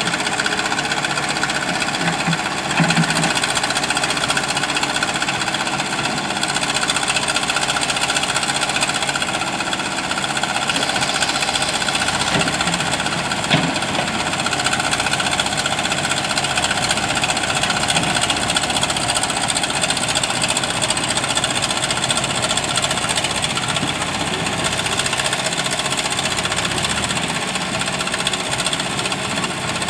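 JCB backhoe loader's diesel engine running steadily under load while the backhoe digs gravel, with a sharp clank about three seconds in and a louder one near the middle.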